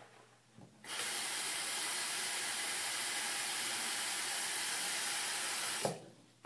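Water running from a tap in a steady hiss, turned on about a second in and cut off abruptly about five seconds later with a short knock.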